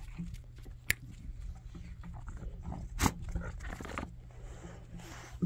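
Dog mouthing a plush toy, with a sharp click about a second in and a short louder sound about three seconds in.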